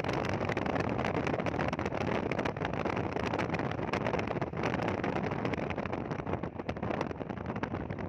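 Wind buffeting the microphone in uneven gusts, over the steady road noise of a car driving along, heard at the side window.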